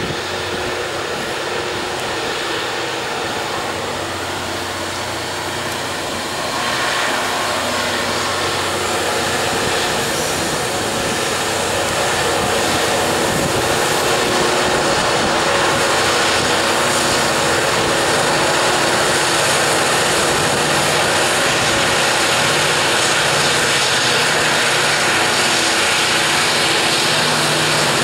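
Loaded coal hopper wagons rolling by on the rails, then four 82 class diesel-electric banker locomotives pushing at the rear of the heavy train, their engines working hard up the grade. The engine noise grows louder about a quarter of the way in and again near the middle as the bankers draw level, then holds steady.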